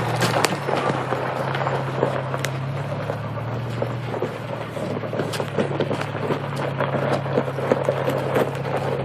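Lifted 1987 Toyota 4Runner's engine running steadily at low revs as the truck rolls slowly over gravel, with many small crackles and pops of gravel under the big tyres.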